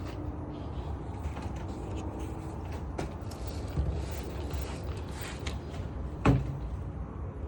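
Steady low rumble with scattered light clicks and creaks, and one sharp knock a little past six seconds in.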